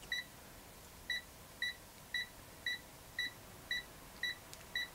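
AstroAI M4KOR multimeter's voltage-detect beeper giving short, high beeps, about two a second after a pause of about a second. This is its slow beep, signalling a low reading ('L') with the probe on the neutral side of the outlet.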